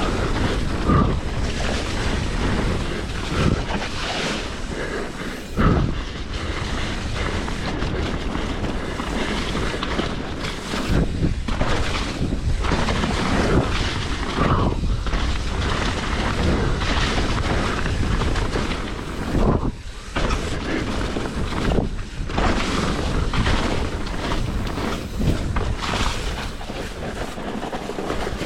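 Wind rushing over the camera microphone and tyres rolling over dirt as a hardtail mountain bike descends a trail at speed, with several sharp thumps as the bike hits features and lands.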